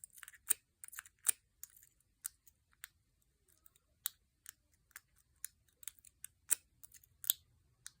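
Lock pick working the pin-tumbler core of an American Lock 1105 padlock: light, irregular metallic clicks, a few each second, as the McTickler pick lifts the pins and they set under tension.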